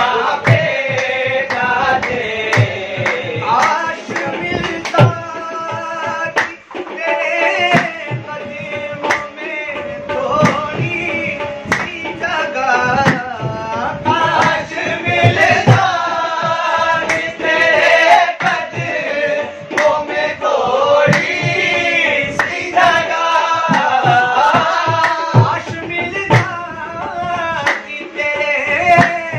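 Qawwali performance: lead and chorus voices singing in long melismatic phrases over a harmonium, with hand-clapping and a hand drum beating the rhythm.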